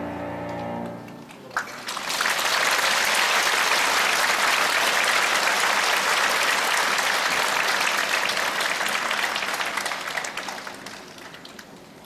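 The last held chord of a choir ends about a second in, and an audience then breaks into applause, which holds steady and fades away near the end.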